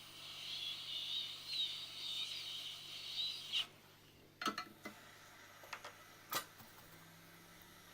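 Hot-air rework station blowing with a wavering hiss that cuts off about three and a half seconds in, followed by a few light clicks and taps of tools on the circuit board.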